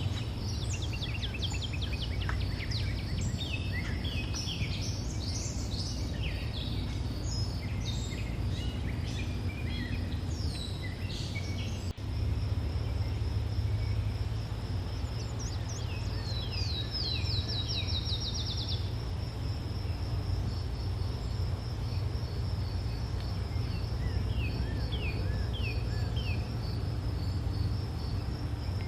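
Forest ambience: insects keep up a steady high chirring while birds call in quick series of short falling notes, with a low rumble underneath. There is a brief dropout about twelve seconds in.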